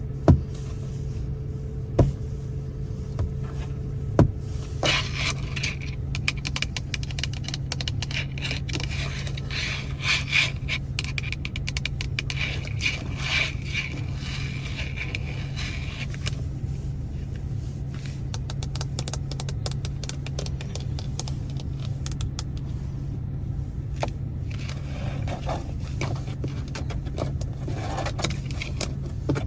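Fingernails scratching and tapping on a Ford Focus's interior trim for ASMR, with a few sharp taps in the first few seconds and dense scratching after that, over a steady low hum.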